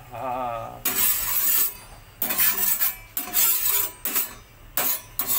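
Metal utensil scraping and clinking on a hot metal cooking plate in a string of short strokes, about six of them, each with a faint metallic ring.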